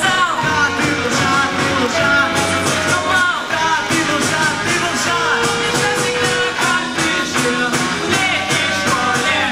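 A rock song with singing and a steady beat.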